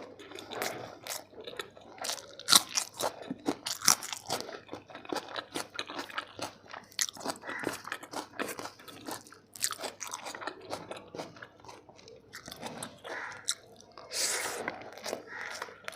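Close-up eating of chicken biryani: chewing and biting, with many irregular crunches.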